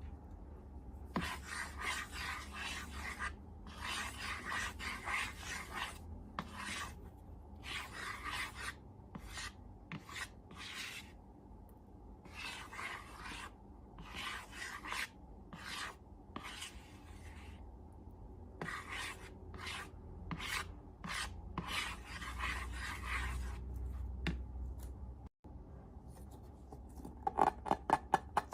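A series of rasping, rubbing strokes, each lasting from about half a second to two seconds, with short pauses between them.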